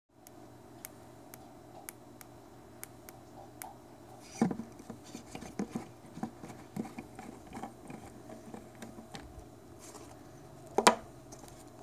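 Hands handling a box-mod vape and its SMOK TFV8 tank. Faint light clicks come first, then the metal tank is unscrewed from the mod with a run of knocks and scrapes, and a single loud knock comes near the end.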